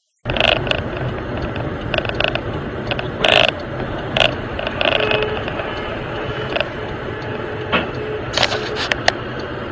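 Cabin sound of a moving car picked up by a windscreen dashcam: a steady road and engine rumble with irregular clicks and knocks of interior and mount rattle. It starts suddenly just after the beginning.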